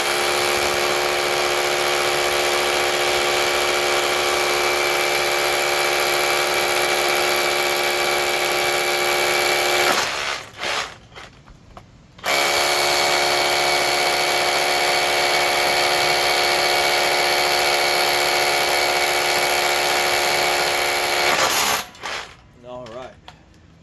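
Bosch 18V cordless SDS rotary hammer drilling two 5/8-inch holes in a row, each a steady hammering run of about ten seconds, with a short pause between them.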